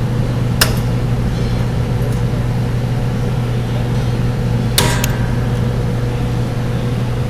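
A steady low hum, with two sharp metallic clicks about half a second in and near five seconds in, as a brake return spring is hooked on with locking pliers.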